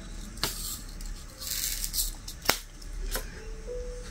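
Diamond painting drills being placed with a drill pen on the canvas: a few sharp clicks, with a short rattling rustle near the middle.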